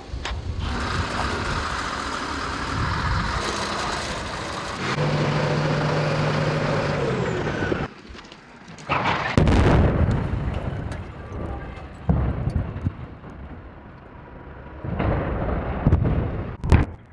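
Demolition sounds across several cuts: machinery noise with a steady low hum, then a loud crash about nine seconds in as a steel water tower falls, and a rumbling blast with falling debris near the end.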